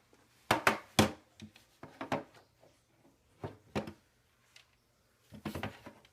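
Scattered knocks and clicks from handling the weather radio and its power cord while it is being plugged in, in clusters about half a second in, around two seconds, around three and a half seconds, and near the end.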